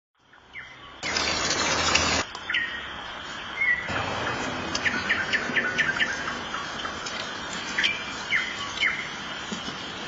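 Nightingale singing: a run of short sharp chirps and quick whistled notes. A loud rush of noise starts about a second in and lasts about a second.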